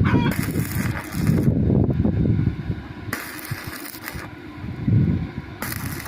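Wind gusting across the microphone ahead of a storm: a low rumble with bursts of rushing noise that come and go every second or so.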